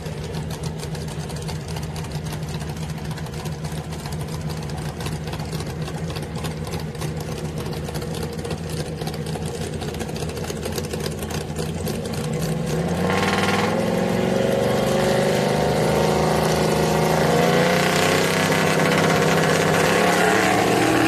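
Drag-racing pickup truck engines idling at the starting line. About 13 seconds in they rev up and hold high, wavering revs, louder, while staging for the launch.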